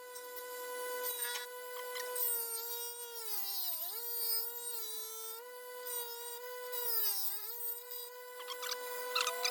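Grinding wheel motor whining at a steady pitch while a steel lawnmower blade is ground, with a hiss of grinding. The pitch dips several times as the blade is pressed against the wheel and loads the motor.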